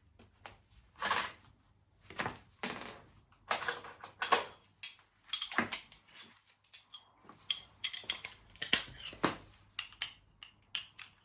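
Metal hand tools and sockets clinking and clattering as they are handled: a string of irregular sharp knocks and clinks, some with a brief metallic ring.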